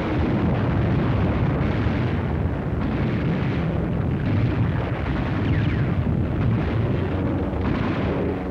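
Battle sound effects on an old 1940s film soundtrack: a continuous dense rumble of explosions and gunfire, with sharp reports scattered through it.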